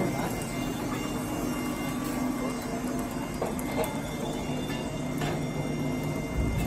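Steady machinery hum with a constant low drone and a thin high whine, under a few faint metallic clicks as hand snips cut and notch a galvanised steel door-frame profile.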